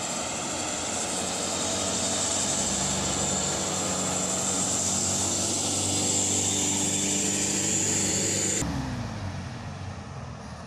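Diesel truck engines labouring up a steep grade at a steady low pitch, with passing car traffic and a steady high hiss. About eight and a half seconds in, the sound cuts off abruptly and goes on much quieter.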